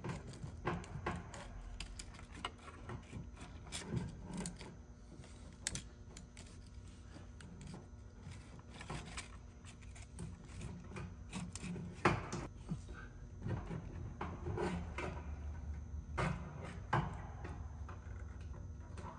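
Scattered small clicks, knocks and rubbing from a car's in-tank fuel pump assembly being worked by gloved hands as its hoses are pried off and it is eased out of the tank opening. One sharper knock comes about twelve seconds in.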